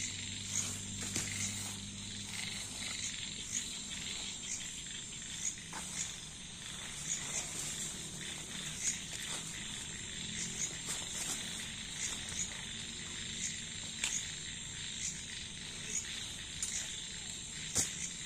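Night chorus of insects and frogs, a steady high-pitched ringing with small repeated chirps, broken by scattered short clicks and rustles of a plastic tarp and gear being handled. A faint low hum sits under it for the first few seconds.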